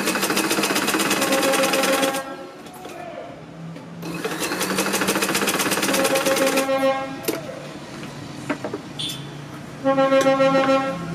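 Sewing machine stitching in three runs: about two seconds, then about two and a half seconds, then a short burst near the end. Each run is a rapid, even stitch rhythm over a steady motor hum, with a few light clicks in the pauses.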